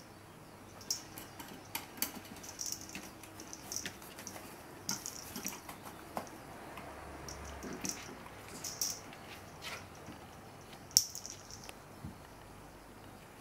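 Chihuahua puppy's and kitten's paws and claws tapping and skittering on a wooden floor while they play with a small ball: scattered light clicks and taps, with one sharper click about eleven seconds in.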